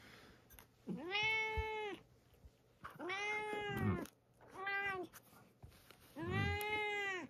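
A cat meowing four times, long drawn-out meows that each rise and then fall in pitch, the third one shorter.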